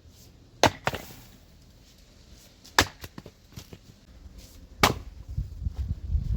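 Axe chopping firewood: three sharp strikes about two seconds apart, the first followed at once by a second knock. After the third strike there is a run of lower, uneven knocking.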